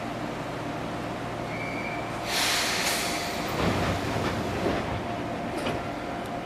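Inside the cab of an Enshu Railway 1000-series electric train: a steady low rumble, a short beep about a second and a half in, then a loud burst of compressed-air hiss from the train's air system, followed by a few low clunks.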